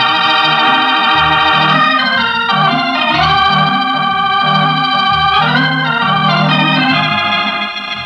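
Organ music from a vintage radio broadcast: sustained chords that change every second or two over a moving bass line, dropping in level near the end.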